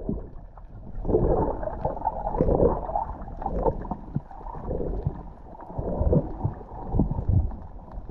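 Water heard from a camera held underwater: muffled rushing and gurgling that swells irregularly about once a second.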